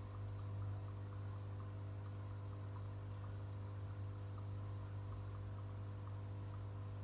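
Steady low hum of running aquarium equipment: an electromagnetic air pump and filter. Faint irregular ticking of fine air-stone bubbles sounds over it.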